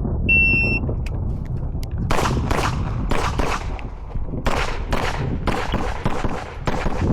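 Electronic shot-timer start beep, a short steady tone, then about a second and a half later a fast string of 9 mm pistol shots from a CZ Shadow 2, many fired in quick pairs, with a short pause midway before the firing resumes.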